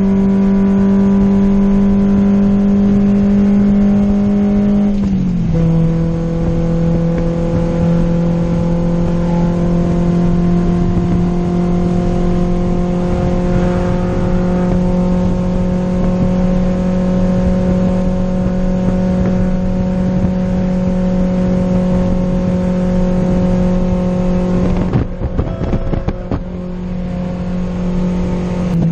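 VW Golf R32 engine running at steady revs under way, a constant drone whose pitch drops slightly about five seconds in and then holds. It wavers briefly near the end before settling lower.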